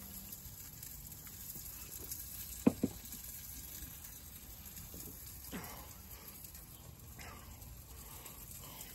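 Wagyu ribeye steak sizzling faintly over a charcoal fire, a steady hiss, with two sharp clicks close together a little under three seconds in.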